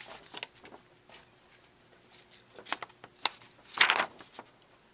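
Handling noise from a handheld camcorder being moved: scattered light clicks and rustles, with one louder brief rustle about four seconds in, over a faint steady hum.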